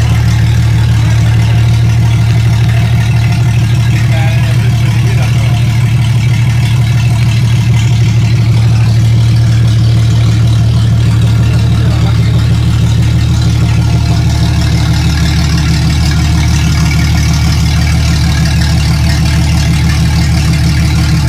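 Jeep Cherokee 4.0-litre straight-six engine idling while it warms up. The note is loud, low and steady, with no revving.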